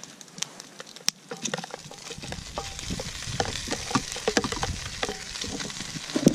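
Soaked brewis (hard bread) dropping into hot salt pork fat in a cast iron Scotch bowl, starting to sizzle and fry about two seconds in. Spoon knocks and scrapes against a plastic container come through it, with one sharp click near the end.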